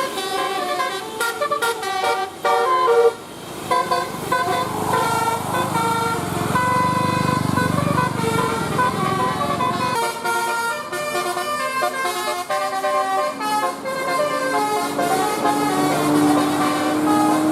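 Bus 'telolet' basuri musical air horn playing a tune of quick stepped notes. The tune changes abruptly about ten seconds in, and a low rising tone comes in under it near the end.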